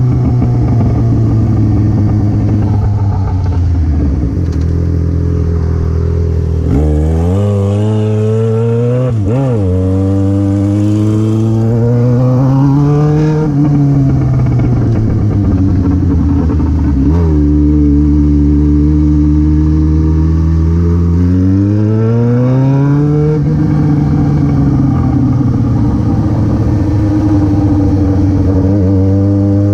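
Yamaha XJ6's 600 cc inline-four running through an open exhaust with no muffler. Its revs climb and fall several times, with a quick blip about nine seconds in, then settle to a steady note near the end.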